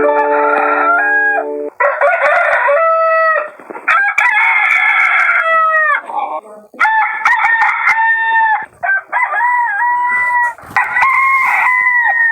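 Rooster crowing over and over, about six cock-a-doodle-doos in a row, each ending in a falling tail.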